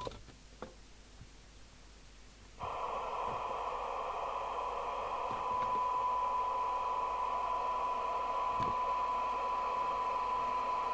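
CB radio receiver's loudspeaker: a few faint clicks, then about two and a half seconds in the receiver audio cuts in with a steady 1 kHz test tone over hiss. This is a tone-modulated test signal being received during receiver alignment. It gets a little louder about halfway through.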